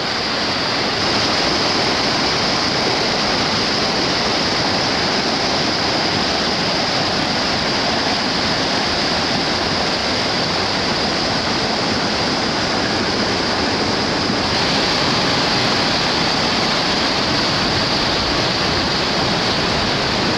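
Whitewater river rapids rushing, a loud steady roar of turbulent water with no let-up, its texture shifting slightly about fourteen seconds in.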